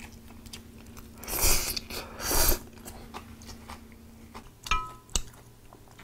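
A person eating braised hairtail: close chewing and biting, with two louder bursts of mouth noise about a second and a half and two and a half seconds in. A couple of sharp light clicks come near the end.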